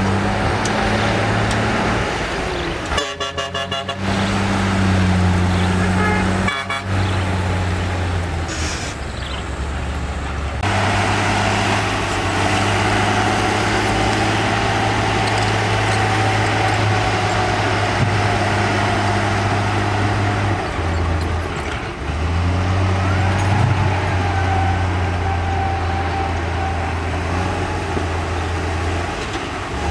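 Heavy diesel engine of earthmoving machinery running steadily with a low drone, changing abruptly a few times where shots are cut together. A steady whine sits above the engine through the second half.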